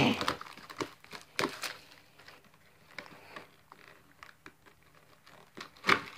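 Plastic shrink wrap crinkling and tearing as it is pulled off a trading-card booster box. It is loudest at the start, with another burst about a second and a half in and softer rustles after. A short sharp rustle comes near the end as the box is opened.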